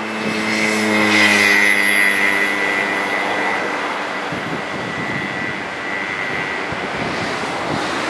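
An engine drone, loudest about a second in and then fading away, over the steady wash of surf.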